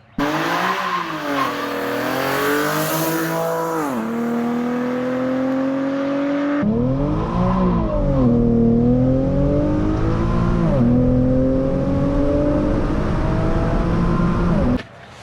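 Infiniti G37's 3.7-litre V6 running through a Z1 Y-pipe with the exhaust cutouts open, warm. Its pitch climbs steadily and drops sharply several times over the run, then stops abruptly.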